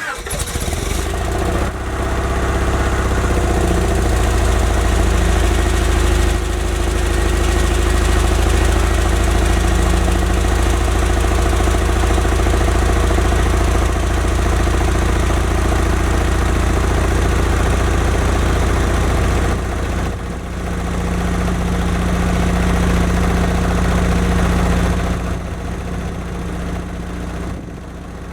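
1991 Honda Prelude Si's B21A1 four-cylinder engine idling just after starting. It settles in over the first couple of seconds, and its level dips about twenty seconds in and again near the end. The owner says it is still misfiring, with an idle surge.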